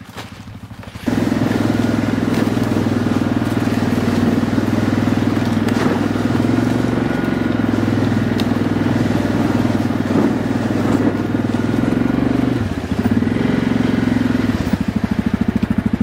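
ATV engine running steadily while riding along a trail. It gets louder about a second in and drops to a low, even putter near the end as the machine slows.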